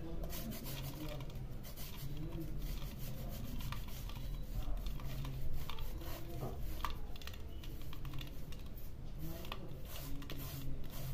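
A lump of jaggery being grated on a flat metal hand grater, a continuous run of rasping, scraping strokes.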